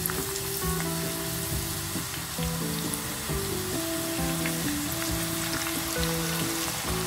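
Lotus root slices deep-frying in hot oil in their first frying: a steady sizzle with scattered crackling pops, over background music with held notes.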